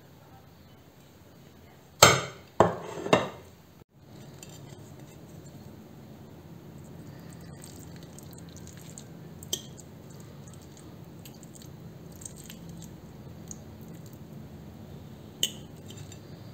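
Metal cutlery knocking on china plates: about two seconds in, three sharp clinks in quick succession, then a faint steady hum with an occasional light tap of a fork on the plate.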